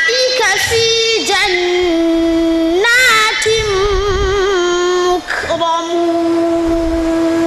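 A young male voice reciting the Qur'an in the melodic tajwid style through a microphone and PA, drawing out long held notes with wavering melismatic turns between them, with a short breath about five seconds in.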